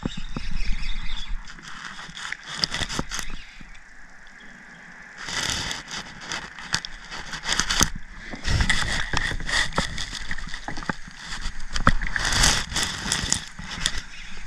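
Spinning reel being cranked in several stretches, retrieving line, with a scratchy clicking whir.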